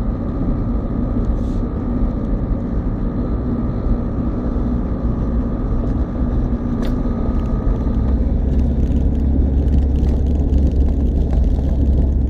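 Range Rover Classic's 200Tdi four-cylinder turbodiesel engine running as the truck drives along a rough lane, heard from inside the cab. About eight seconds in, a steady whine drops out and a deeper, louder low rumble takes over.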